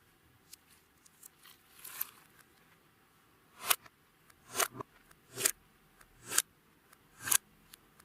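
Clear slime being worked with makeup and glitter: soft sticky crackles at first, then from about halfway in a sharp pop roughly once a second, each swelling quickly and snapping off as air pockets burst.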